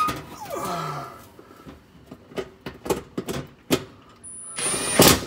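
Scattered clicks and knocks of metal being handled at the oven's bake element and sheet-metal cavity, ending in a short, loud clatter about five seconds in.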